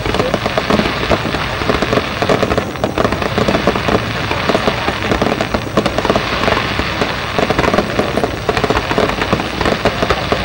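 Aerial fireworks barrage: many shells launching and bursting in quick succession, a dense, continuous crackling and popping with no pause.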